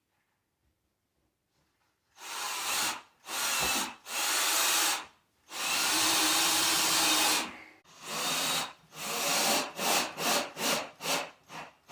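A power drill run in repeated bursts starting about two seconds in. There are several runs of one to two seconds, then a quick string of short trigger pulses near the end.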